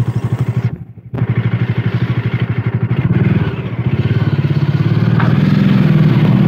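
Bajaj Dominar 400's single-cylinder engine running at low speed with an even thumping beat. It drops out briefly about a second in, then comes back louder and steadier in the second half.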